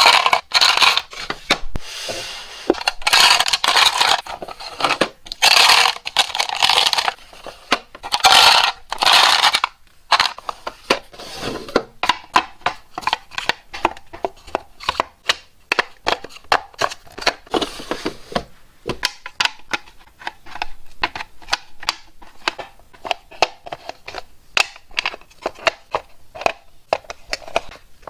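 Hands-on work sounds with no speech: several long, rough scraping or rubbing strokes in the first ten seconds, then a long run of quick, sharp clicks and taps, a few each second.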